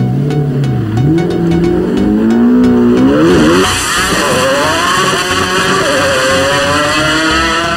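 McLaren F1 GTR race car's BMW V12 idling briefly, then accelerating hard away, the engine note climbing and dropping back at each upshift.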